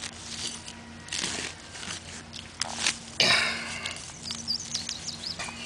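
Crunching of a digging tool cutting into turf and soil over a metal detector target, in a few short bursts, the strongest about three seconds in. A faint low steady hum cuts in and out underneath.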